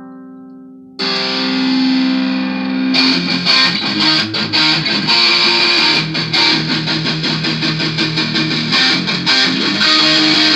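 Intro rock music on electric guitar. A clean chord rings out and fades, then about a second in a loud distorted electric guitar comes in. From about three seconds in a steady beat of sharp hits joins it.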